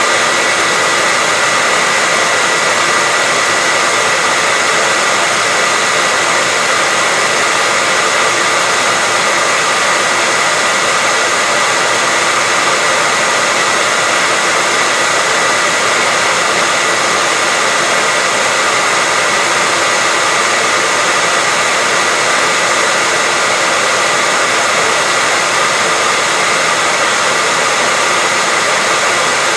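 Hair dryer blowing at a steady speed: an even rush of air with a thin motor whine held on one pitch.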